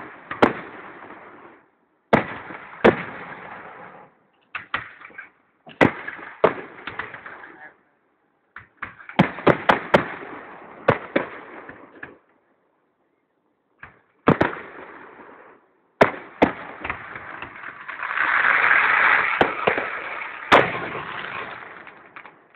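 Fireworks display: sharp bangs of bursting shells, each trailing off into crackle, coming in clusters of several at a time. Near the end comes a louder, sustained rush of crackling noise, followed by one more strong bang.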